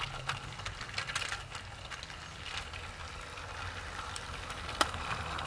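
Battery-powered motorized toy train engine running along plastic track: a steady low motor whir with irregular small clicks, and one sharper click near the end.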